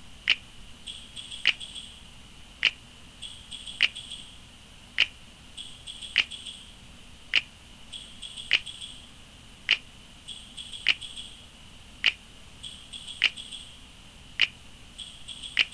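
A sharp click repeating at an even pace, about once every 1.2 seconds, with faint high chirping between the clicks.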